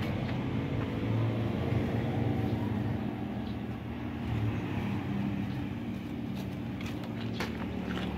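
A motor running with a steady low hum, with a few faint clicks near the end.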